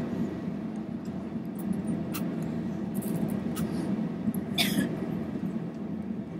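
Airliner cabin noise while taxiing: a steady low hum of the engines and air conditioning, with a few faint clicks and a short higher-pitched sound about two-thirds of the way through.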